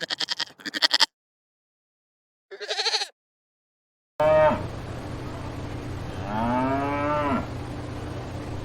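Two short bursts of rapid chattering animal calls, then, over a steady background, a lowing, moo-like call from a large animal: a short falling cry followed by a longer one that rises and falls.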